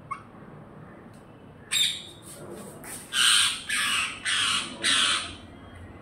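Parrot calling: one short call about two seconds in, then four loud, harsh calls of about half a second each in quick succession.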